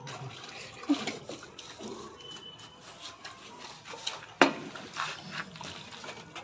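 Steel trowel scraping and spreading a sand-cement mortar bed, with faint repeated scratchy strokes and one sharp knock about four seconds in.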